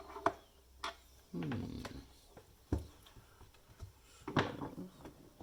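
A few sharp clicks and knocks of hand tools handled against the plastic casing of an induction cooker being taken apart, with a brief low mumble about a second and a half in.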